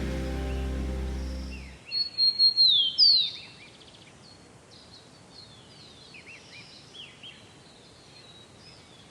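Background music that stops about two seconds in, followed by birds calling: a quick run of loud chirps and a falling whistle, then scattered fainter chirps.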